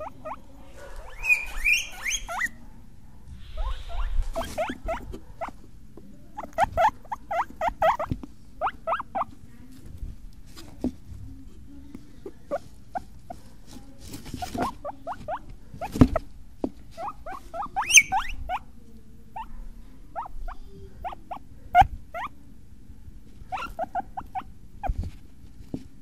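Guinea pigs squeaking in runs of short, quick squeaks, with a longer, higher whistling call near the start and a few sharp clicks.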